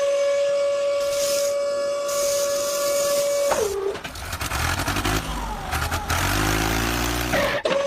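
A long, steady whistle tone lasting about three and a half seconds that sags in pitch as it stops. Then a vehicle engine runs and revs up, and the whistle tone starts again just before the end.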